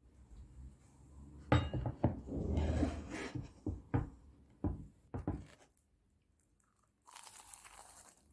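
Tableware being handled: a run of knocks and clinks with some clattering, then, after a short lull, a brief hiss of about a second near the end.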